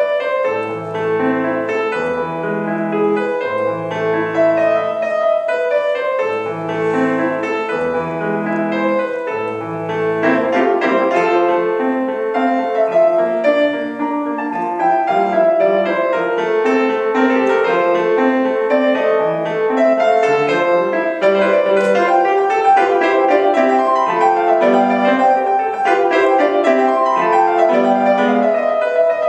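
Solo piano playing a classical piece, with held low chords under a melody early on and then quicker running passages.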